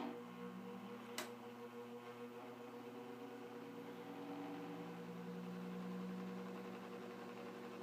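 Electric fan running with a steady motor hum, with a single sharp click about a second in.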